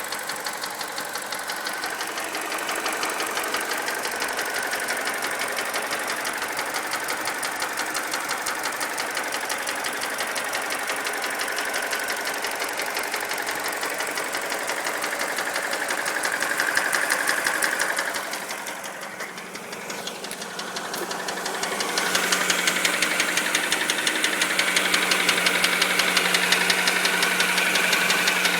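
Mini Cooper's N12 1.6-litre four-cylinder engine running with a rapid, regular knock, which the owner takes for rod knock and which grew from a faint tick the owner first blamed on the timing chain. The knock dips quieter briefly past the middle, then comes back louder with a steady hum underneath.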